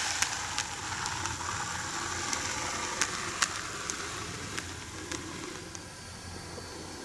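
N-gauge E653 series model train running on plastic-based model track: a steady hiss from its wheels with scattered sharp clicks. The hiss fades as the train slows and comes to a stop.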